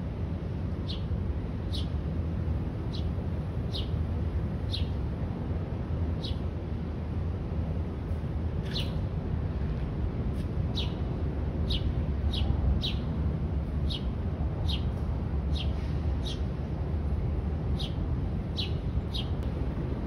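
House sparrows chirping: short single chirps that fall in pitch, repeated about once a second and at times in quicker pairs, over a steady low background rumble.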